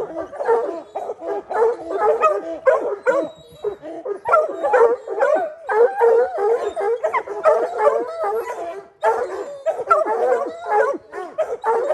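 A pack of hunting hounds barking and baying, many voices overlapping almost without a break: hounds bayed up under a treed mountain lion.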